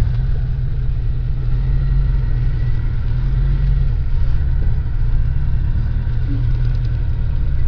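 Steady low drone of a 1976 Rover 2200TC's four-cylinder engine and road noise, heard from inside the cabin while driving.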